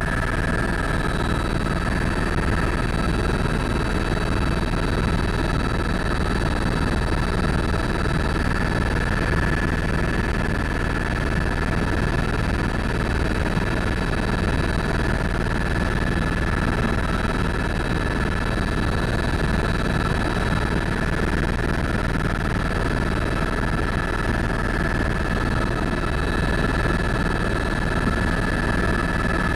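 Tour helicopter in flight heard from inside the cabin: a steady rotor and turbine drone with a constant high whine on top.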